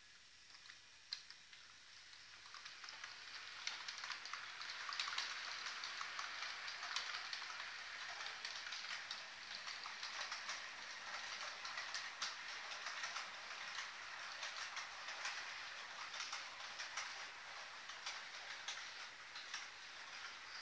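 An H0 model freight train hauled by a Piko Vectron BR 193 model locomotive, rolling along the track. Its metal wheels make a steady hissing rumble on the rails, with many sharp clicks over rail joints and points. The sound builds up over the first few seconds.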